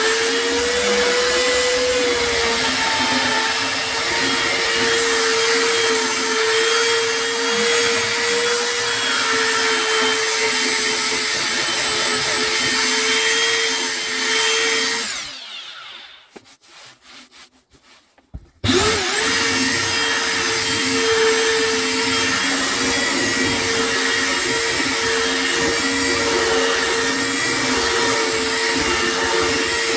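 Electric power sander running steadily on the wood with a steady motor whine. About halfway it switches off and winds down, stays quiet for about three seconds apart from a few light knocks, then starts up again and runs on.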